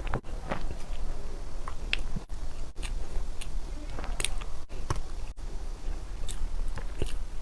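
Close-miked sounds of a person eating Chinese food: irregular chewing, biting and wet mouth smacks, several every second, over a steady low hum.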